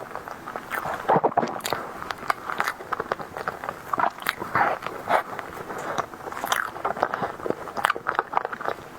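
Close-miked eating sounds: biting into and chewing a soft tiger skin dessert, with irregular wet mouth clicks and squishy smacks.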